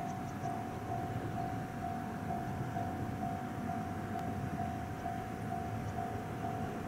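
Japanese railway level-crossing warning bell ringing steadily, one electronic tone pulsing about twice a second, over a low steady rumble, as an Ohmi Railway train approaches.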